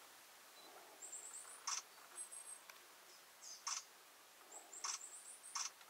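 Four sharp clicks, spaced roughly a second apart, are the loudest sounds, over faint runs of thin, very high-pitched small-bird calls.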